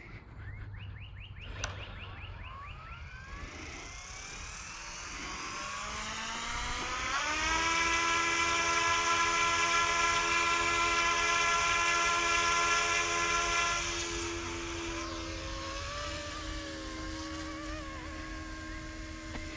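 Electric motors and rotors of a YXZNRC F09 Black Hawk RC helicopter spooling up in a rising whine over the first several seconds. The whine then holds steady at its loudest, and after about fourteen seconds it turns a little quieter, with the pitch wavering as the helicopter flies.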